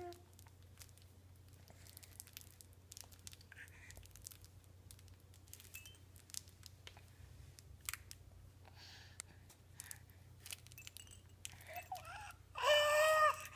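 Young child playing, with scattered small clicks and rustles of handling, then a loud, high-pitched vocal squeal lasting about a second near the end.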